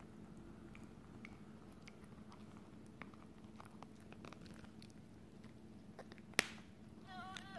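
A dog gnawing and chewing on a stuffed cloth doll: soft, irregular little clicks of teeth and mouthing, with one sharp click about six seconds in. A high, wavering whine starts just before the end.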